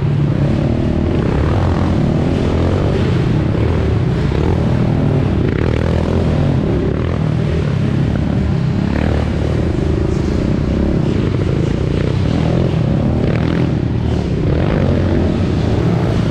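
Dirt bike engine heard from on board, running hard through the whole stretch with the revs rising and falling.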